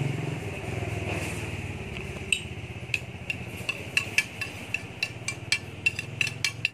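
Wood fire crackling with sharp irregular snaps, several a second, starting about two seconds in, over a steady low engine-like rumble.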